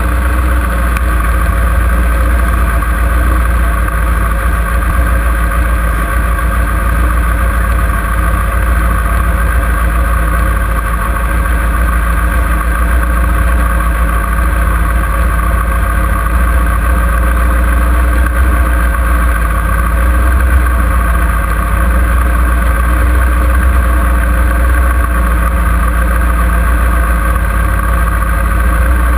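Kawasaki ZX-6R's inline-four engine idling steadily.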